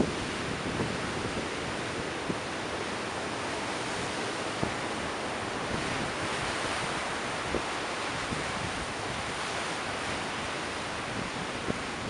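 Rough ocean surf: a steady rush of breaking waves that swells about six seconds in as a wave breaks, with wind buffeting the microphone in a few brief low thumps.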